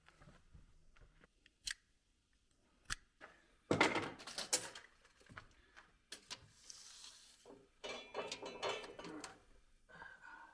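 Small clicks, knocks and clattering of tools and hardware being handled at a workbench. There are louder bursts of rattling about four seconds in and again around eight seconds, and a short hiss near seven seconds.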